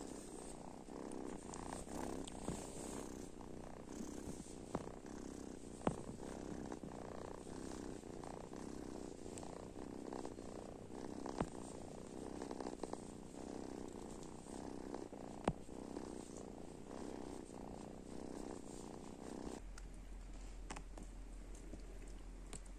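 Kitten purring steadily close to the microphone, with a few sharp clicks. The purring stops abruptly about twenty seconds in, leaving a low steady hum.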